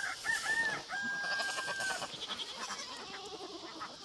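A rooster crowing: a few short rising-and-falling notes, then one long held note that ends about two seconds in.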